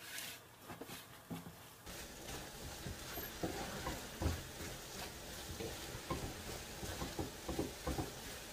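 Wooden spoon stirring and scraping scrambled eggs with tomato, onion and chile in a nonstick frying pan, with the eggs sizzling. The spoon knocks irregularly against the pan, picking up about two seconds in.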